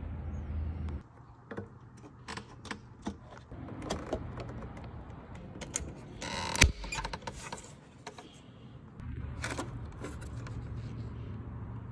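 Plastic clicks and small knocks as an LED headlight bulb is worked into a headlight housing's socket and its wiring plug handled, with one sharp snap a little past the middle.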